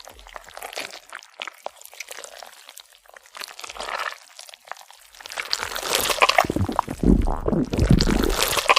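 Wet, squelching mouth sounds of chewing and swallowing, crackly and fairly quiet at first, then growing much louder and heavier from a little past the middle.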